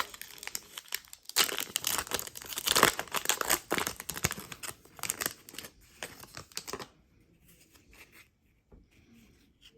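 Foil trading-card pack wrapper being torn open and crinkled, a dense crackling for about seven seconds that then stops.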